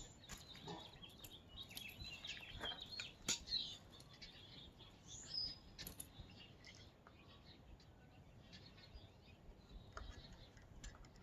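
Faint, scattered bird chirps, with a few light clicks and taps of hand work on the mower's wheel hub.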